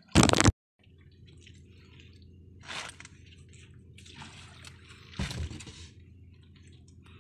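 Wet dripping and trickling sounds around freshly caught fish on wet ground, with two louder wet slaps about three and five seconds in, over a low steady hum. It opens with a short loud burst that cuts off abruptly.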